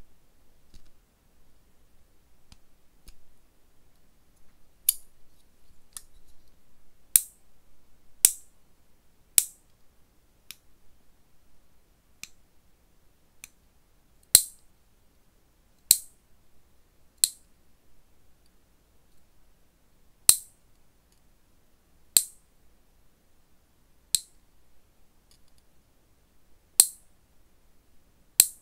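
Metal lever nail clipper snapping through natural fingernails, one sharp clip at a time. The clips start about five seconds in and come irregularly every one to three seconds, with only faint clicks before that.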